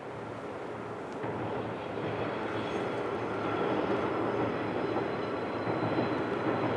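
A diesel train carrying Sanriku Railway railcars runs across a girder bridge, growing steadily louder as it approaches, with a faint high whine from the wheels. A river rushes underneath.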